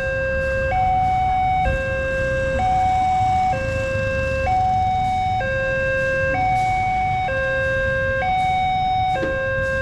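Railway level-crossing warning alarm sounding a steady two-tone pattern, a lower and a higher tone alternating about once a second, over the low rumble of road traffic.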